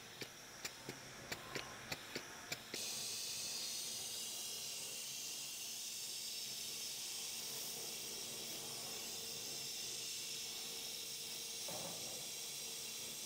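Compressed air hissing steadily at the valve of an old temporary spare tyre as it is inflated through an air chuck, starting suddenly a few seconds in. Before the hiss comes a quick run of small clicks as the chuck is fitted onto the valve.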